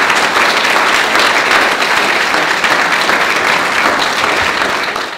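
Audience applauding at the end of a talk: dense, steady clapping that tapers off at the very end.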